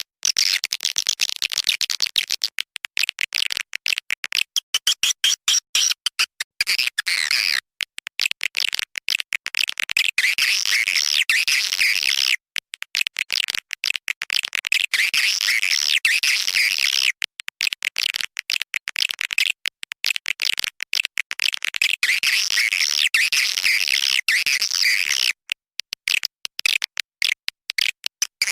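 Swiftlet lure call ('suara panggil'): a recording of swiftlets twittering in fast, high chirps, with frequent short gaps and a few brief dropouts. It is a looped track played to draw swiftlets into a nesting house.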